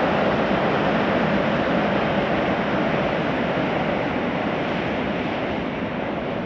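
Steady roar of a passing train, its level easing slightly toward the end.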